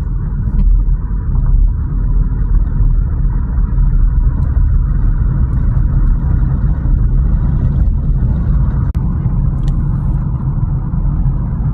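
A car driving steadily, its engine and tyre noise giving a constant low rumble.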